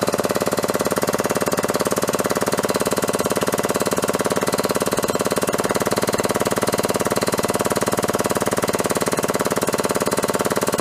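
Air-driven pump of a 50-ton hydraulic shop press running steadily with a rapid, even pulsing chatter, as the press forces a square broach down through a bushing.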